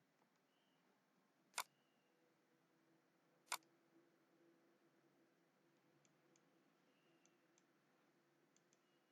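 Near silence, broken by two sharp computer mouse clicks about two seconds apart, with a few much fainter paired ticks later on.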